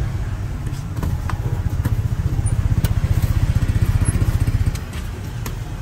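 A motorcycle engine running close by, its low rapid pulsing growing louder about two seconds in and dropping away near the end. A few light clinks of a metal spoon and tin can sound over it.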